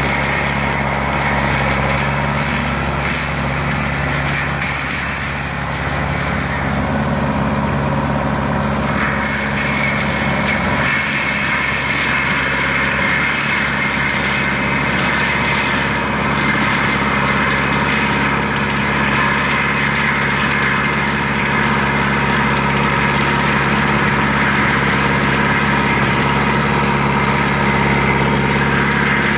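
Lamtrac LTR6125 tracked carrier's diesel engine running steadily under load while its Denis Cimaf 180D disc mulching head spins, grinding into brush and small trees. A high whine steps up in pitch about nine seconds in.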